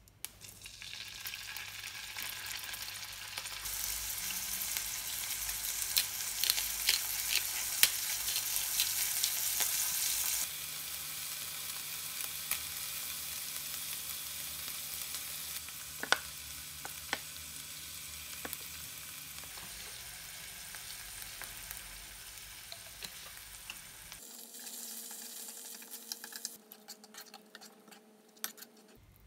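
Minced meat sizzling as it fries in a hot non-stick frying pan, with clicks of the utensils against the pan as it is stirred. The sizzle is loudest in the first third, weakens as the red pepper paste is stirred in, and drops away near the end, leaving a few light taps.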